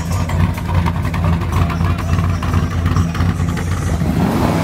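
Classic muscle car engine idling steadily with a low, even note.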